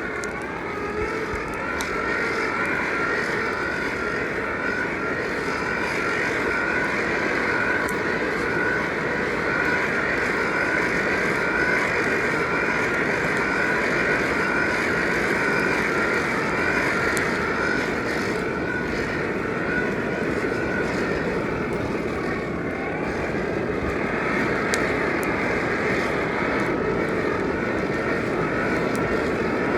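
Steady whir of a coal forge's air blower feeding the fire, with a faint crackle from the burning coal.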